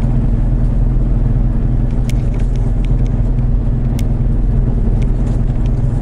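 Steady road and engine noise inside a moving car: a low, even drone, with a couple of faint light ticks.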